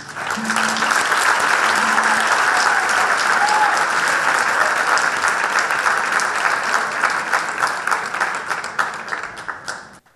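Audience applauding: a dense wash of clapping that starts abruptly, holds steady, then thins to scattered claps and stops near the end.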